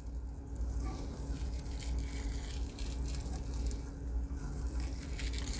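Steady low background rumble with a faint hum, over faint light ticks and rustles of chenille being wrapped by hand around a jig hook held in a fly-tying vise.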